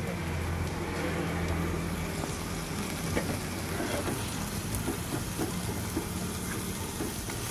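Spatula clicking and scraping in a frying pan as small chicken pieces are stirred, with a faint sizzle, over a steady low hum; the stirring clicks start about three seconds in.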